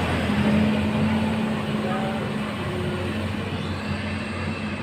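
Large intercity coach's diesel engine running steadily as the bus pulls away, its sound slowly fading.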